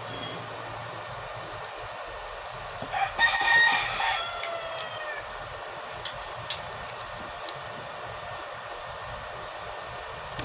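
A rooster crowing once, a call of about two seconds that falls away in pitch at the end, over a steady background hiss, followed by a few sharp ticks.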